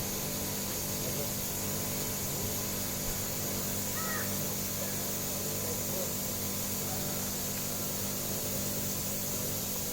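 Steady low hum and hiss, with a few faint bird calls, the clearest about four seconds in.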